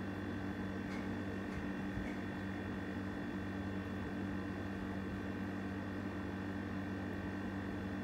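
Steady electrical hum with a low buzz and an even hiss, a faint room tone, with a few faint light ticks in the first couple of seconds.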